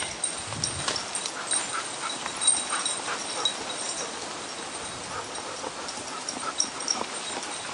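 Rustling and crackling of dry fallen leaves and twigs as a walker and several dogs move across a woodland floor, with a few sharper snaps. Thin, faint high-pitched dog whining comes through now and then.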